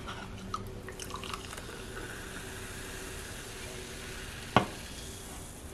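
Sparkling water poured from an aluminium can into a glass, fizzing as it foams up. A single sharp knock about four and a half seconds in.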